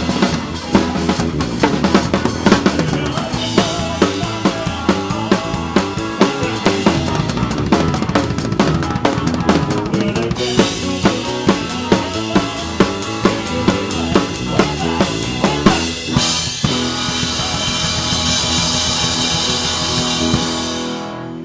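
Live rock-and-roll band with the drum kit loud up front: a driving beat on snare and bass drum over bass and guitar. About sixteen seconds in the beat stops, and the band holds a final chord under a long cymbal wash. It cuts off sharply just before the end.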